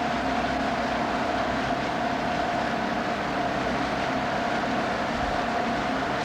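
Steady machine drone with a constant mid-pitched hum over a rushing noise, stopping abruptly at the end.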